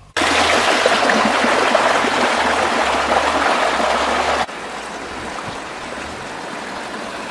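Stream water rushing over rocks, a loud steady rush that drops suddenly to a quieter flow about four and a half seconds in.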